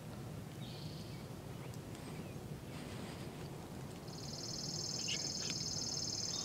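A small wild animal's high, buzzy trill, a steady rapid pulsing that starts about four seconds in and holds for about three seconds, over a faint outdoor hush.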